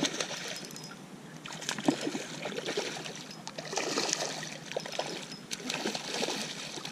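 Hooked trout splashing at the water's surface in repeated bursts, sharpest about two seconds in.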